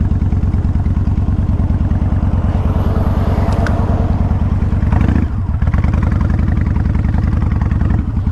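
2000 Kawasaki Vulcan 1500 Classic's V-twin engine running under way, heard from the rider's helmet microphone as a steady low pulsing. The engine note drops off briefly about five seconds in and again near the end.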